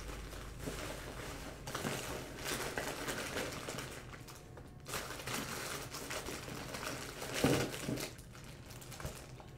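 Plastic wrapping and packaging crinkling and rustling as hands rummage through a cardboard box, with small clicks and knocks of items being shifted. It swells louder a few times.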